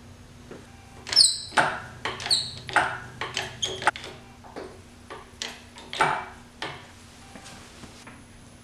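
Hydraulic engine hoist being pumped by its long handle to lift an engine: an irregular run of clanks and short high squeaks from the pump and its pivots, starting about a second in and stopping about seven seconds in.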